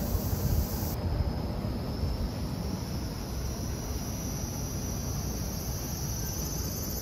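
Steady outdoor city ambience: a low, even rumble with a thin, steady high-pitched insect drone over it, like summer cicadas.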